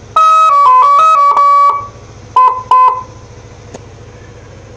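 Telolet siren on a Yamaha Nmax scooter playing a quick melody of stepped horn tones for about a second and a half, then two short beeps. The scooter's engine idles steadily underneath.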